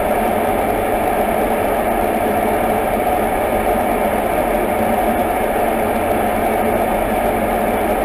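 Steady, unchanging drone of airflow and jet engine noise inside an aerial refuelling tanker's boom operator pod while it refuels an F-22 Raptor.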